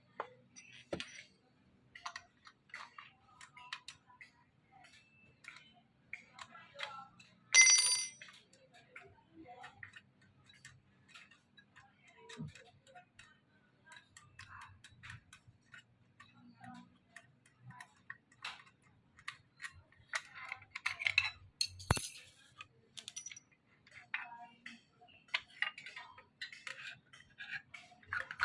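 Scattered small clicks and taps of metal and plastic parts as a cordless circular saw's blade is fitted, with one sharp ringing metallic clink about eight seconds in. The saw's motor is not running.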